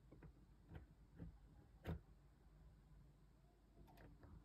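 A few faint clicks of component leads and wires being pressed into a solderless breadboard's contacts, the sharpest about two seconds in.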